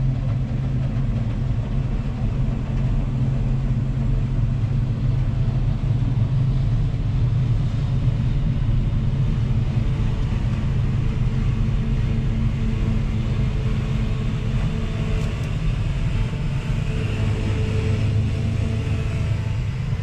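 New Holland CX5090 combine harvester running steadily, a low, even engine and machinery hum heard from inside the cab.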